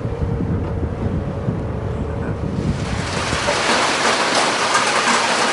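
Low rumble of a boat motor with wind on open water. About two and a half seconds in, it gives way to a steady rushing hiss from a mussel processing line, where wet mussel shells tumble over machinery.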